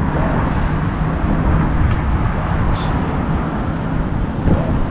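Steady low rumble of road traffic, with wind buffeting the microphone.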